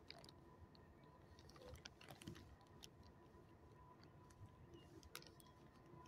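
Near silence with faint, scattered light clicks and a faint steady high hum.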